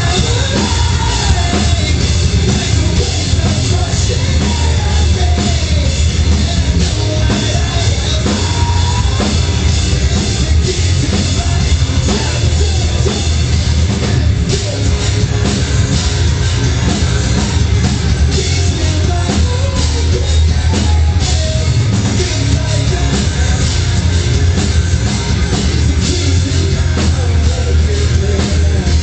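Rock band playing live at full volume: drums, electric guitars and a lead singer, with the low end heavy and blurred as recorded on a small camera in the crowd.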